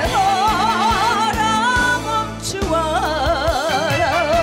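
Live trot song music: a lead melody with wide vibrato in two phrases, with a short break about two seconds in, over band accompaniment with regular beats.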